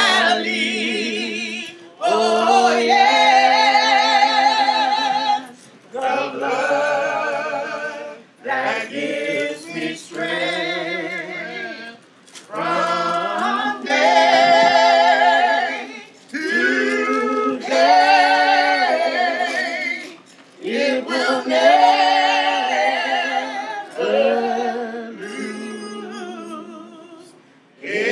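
A singer's voice with strong vibrato singing a slow song in long held phrases broken by short pauses.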